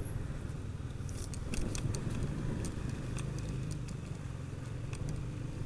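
Yamaha NMAX scooter riding along, a steady low engine and road rumble with scattered light clicks and rattles.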